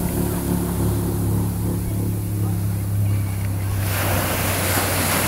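A steady low droning tone with overtones, then about four seconds in, ocean surf washing in loudly, with wind on the microphone.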